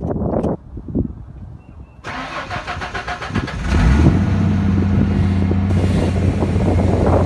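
Car engine being cranked by its starter with a rhythmic churning for about a second and a half, then catching about three and a half seconds in and settling into a steady idle.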